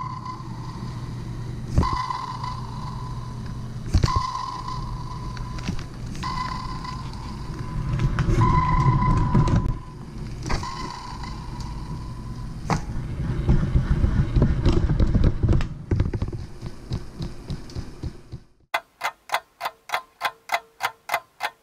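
LEGO Mindstorms EV3 TRACK3R robot running: motor and track rumble with sharp knocks as it works, and a short beep repeating about every two seconds. Near the end the rumble stops and a fast, even clicking takes over, about six clicks a second.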